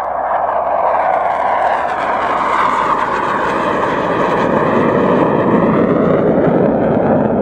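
Military jet making a low fly-by, the roar of its engine building over the first second and staying loud as it passes, with a sweeping, phasing swish in its tone.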